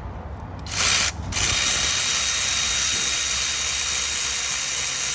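Power ratchet running to undo the thermostat housing bolts: a short burst, a brief pause, then one steady, hissing run of several seconds.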